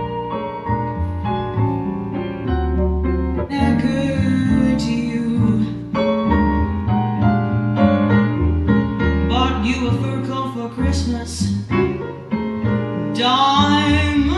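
Recorded music with piano and a singing voice, played at a healthy volume through a Luxman M-383 power amplifier and C-383 preamplifier into Canton Ergo RCL floor-standing speakers.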